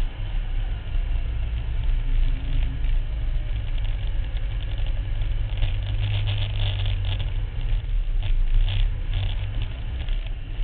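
Engine of a Max IV 6x6 amphibious ATV running steadily as it drives over sand dunes, a low drone that swells about six seconds in. A stretch of crackling noise lies over it from about six to nine seconds in.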